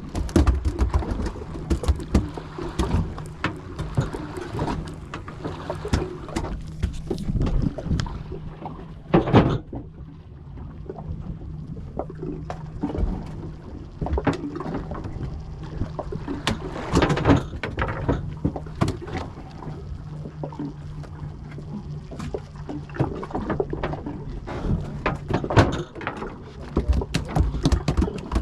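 Fishing boat's engine running steadily with a low hum, under frequent knocks and clatter on board and rough wind-and-water noise.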